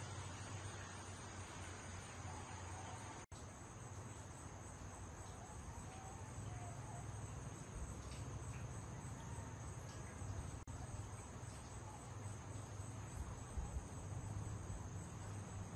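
Steady outdoor insect chorus of crickets or katydids, a continuous high-pitched buzz, over a steady low rumble. The sound drops out for an instant twice, about three and eleven seconds in.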